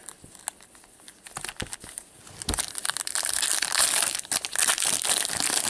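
Hockey card pack wrappers being handled and opened. A few light clicks and rustles come first, then from about two and a half seconds in there is loud, steady crinkling as a pack is worked open.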